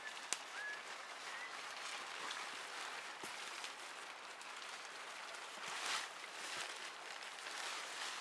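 Tarp rustling and crinkling as it is spread and draped over a lean-to's pole frame, with a louder rustle about six seconds in.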